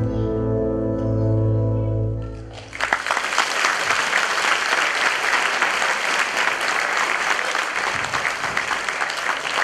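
Recorded classical music ends on a held final chord that fades out, and about three seconds in an audience breaks into steady applause that carries on.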